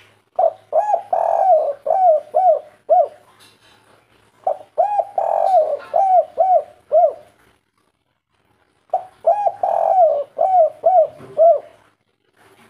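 Spotted dove (tekukur/derkuku) cooing: three phrases, each a quick run of about eight short, rounded coos with one longer coo near the start, spaced a couple of seconds apart.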